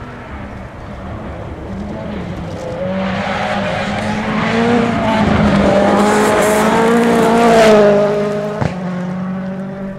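Rally car engine revving hard, its pitch rising and falling through gear changes, growing louder as the car comes through the gravel bend. It is loudest as it passes close by about eight seconds in, with gravel and stones thrown up, followed by a single sharp crack just after.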